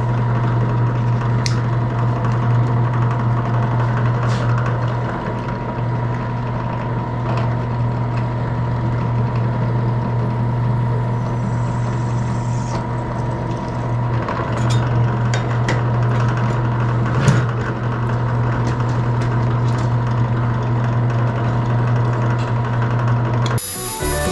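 Electric drill motor running steadily with a constant hum while holes are drilled through aluminium stiffeners held in a jig, with scattered light clicks and ticks from the bit and the work. The hum stops near the end.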